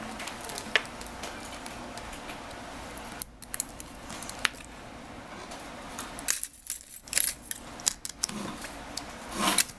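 Scattered small metallic clicks and ticks of a precision screwdriver and tiny parts being worked inside an iPhone, with a cluster of sharper clicks in the second half as the phone's back cover is handled and fitted.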